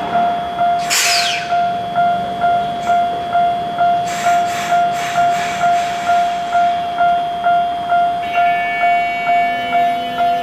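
Japanese level-crossing warning bell ringing steadily, a repeated electronic ding about twice a second, as a Tokyo Metro 1000 series subway train passes over the crossing. There is a brief hiss about a second in, and a quick run of clacks around the middle as the wheels cross the rail joints.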